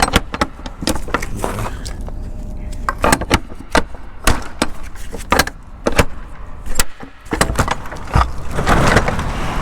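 Irregular metallic clicks, clanks and knocks from working the rear doors of an empty 53-foot semi-trailer, with a low rumble near the end.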